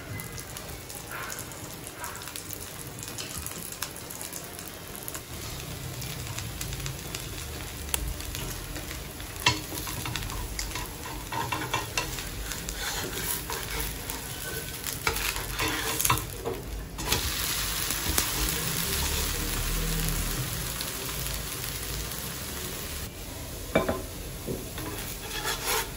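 Dosa frying in ghee on a hot nonstick tawa over a high flame, sizzling steadily. A wooden spatula scrapes and taps against the pan now and then, and the sizzle grows louder for several seconds past the middle.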